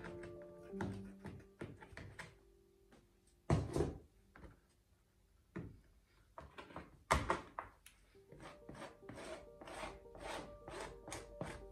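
Knocks, taps and rubbing from a cloth rag and a plastic spatula being handled on a work table, with two louder thumps about three and a half and seven seconds in. Quiet background music plays under them.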